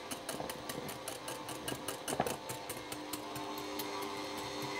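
Electric stand mixer running steadily at low speed, a hum with a rapid, regular clicking about five times a second.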